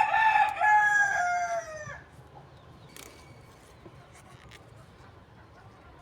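A rooster crowing once, a single drawn-out call of about two seconds that drops in pitch at the end.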